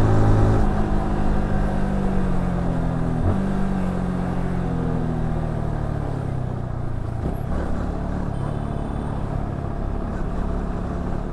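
Yamaha R15S's 155cc single-cylinder engine heard from the rider's seat as the bike slows, its pitch falling gradually with a brief change about three seconds in.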